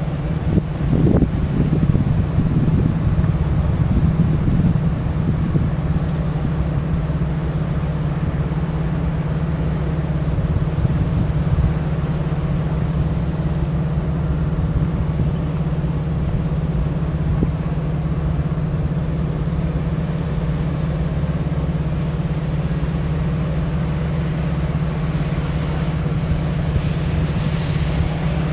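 Steady low mechanical drone, like an engine running, with some uneven rumble in the first few seconds.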